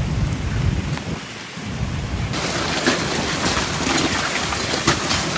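Heavy rain during a thunderstorm with a strong low rumble. About two seconds in the sound changes abruptly to rain with many sharp taps of drops striking a hard surface.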